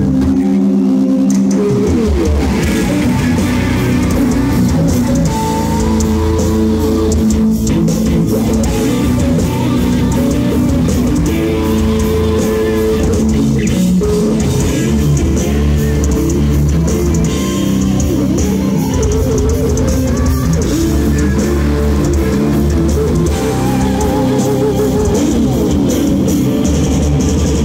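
Live heavy metal band playing: distorted electric guitars, bass guitar and drum kit. The bass and kick drum drop out for about the first two seconds, then the full band plays on.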